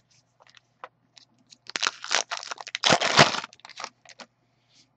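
Hockey card pack wrapper being torn open and crinkled, loudest for about a second and a half starting near two seconds in, with light clicks of cards and packs being handled before and after.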